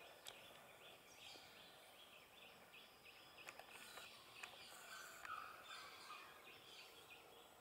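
Faint outdoor ambience of rapid, repeated chattering calls, with a brief louder call about five seconds in.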